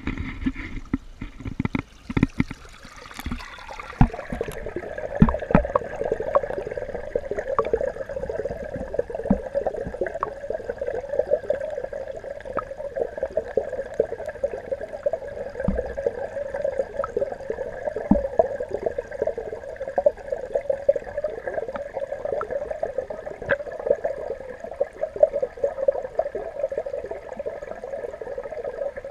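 Water sloshing and knocks as a camera is dipped into a garden fish pond, then muffled underwater sound: a steady hum with many small clicks and crackles.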